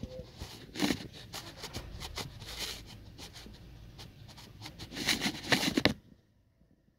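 Handling noise of a hand-held phone camera: irregular close clicks and rustling knocks in clusters about a second in, around two to three seconds and around five seconds. The sound cuts off suddenly to near silence about a second before the end.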